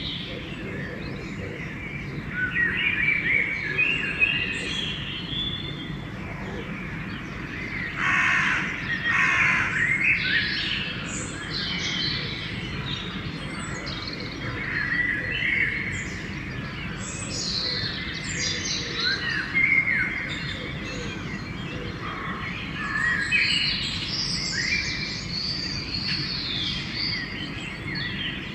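Dawn chorus: many songbirds singing over one another in short phrases, with a harsh crow cawing about eight seconds in, over a steady low background rumble.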